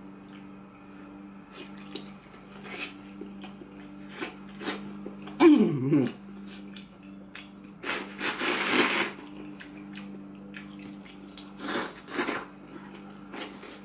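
Mukbang eating sounds: small clicks of chopsticks and chewing, a falling vocal 'ooh' about five seconds in, and a loud breathy rush lasting about a second around eight seconds. Near the end come two short puffs of blowing to cool a hot fish ball. A steady low hum runs underneath.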